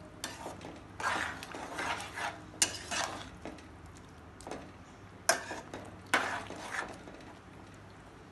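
A metal spoon stirring and scraping through thick beef masala in a stainless steel pot, in irregular strokes about a second apart with short lulls between them.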